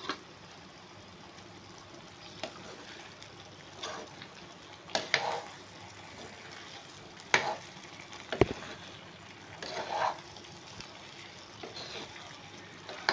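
A spatula stirring manchurian balls in thick gravy in a non-stick pan over a steady low sizzle, with irregular scrapes and knocks against the pan about every one to two seconds; the sharpest knock comes a little past the middle.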